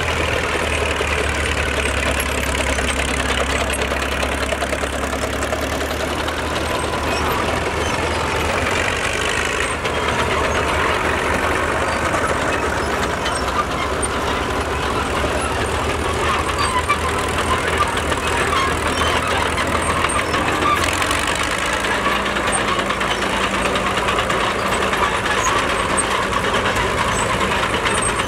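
Vintage Caterpillar diesel crawler tractors running steadily as they drive slowly past. The low engine note changes about three quarters of the way through.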